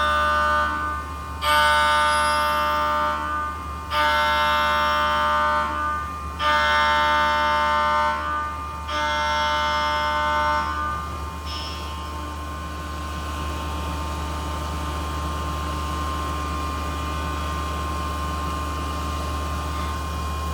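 Background music of sustained keyboard chords, each held about two seconds and repeated in a regular pattern, giving way after about eleven seconds to a steadier held tone. A constant low hum runs beneath it.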